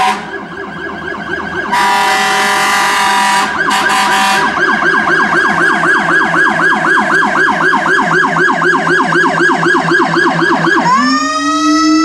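Whelen electronic emergency siren demonstrated on a vehicle: air-horn blasts, first one long blast and then a few short ones, give way to a fast yelp that sweeps up and down about four to five times a second. Near the end the tone switches to a slow wail winding upward.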